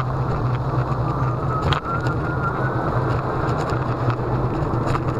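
Steady rumble of wind and road noise from riding a Solowheel electric unicycle on an asphalt street, with a click a little under two seconds in followed by a faint rising whine.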